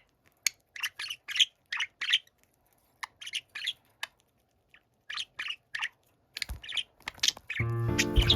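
Budgerigar chirping and warbling in a string of short, quick calls with brief gaps between them. Soft piano music comes in near the end.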